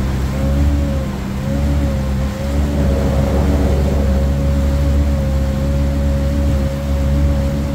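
Kawasaki Ultra 310LX-S personal watercraft engine running steadily, a deep hum with a higher whine that wavers slightly in pitch.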